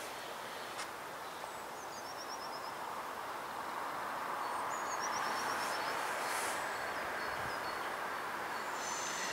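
Electric passenger train approaching through a curve, its rolling noise of wheels on rail growing louder. Near the end, high steady wheel squeal sets in as the wheels grind through the curve. A small bird gives two quick series of chirps.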